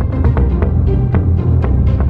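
Outro music with a heavy bass line and a quick, steady drum beat.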